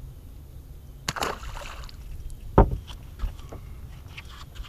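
A small bass dropped back into the water from a boat, with a brief splash about a second in. Then comes a single sharp low thump against the boat's deck or hull, the loudest sound, followed by a few light clicks of rod and tackle handling.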